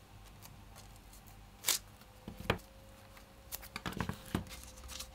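Graphite paper and painter's tape being handled as the paper is taped down over the lino: a few short paper rustles and tape crackles, with several quick ones near the end.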